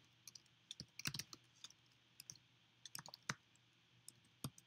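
Faint computer keyboard typing: scattered keystroke clicks in short irregular runs, with pauses between them.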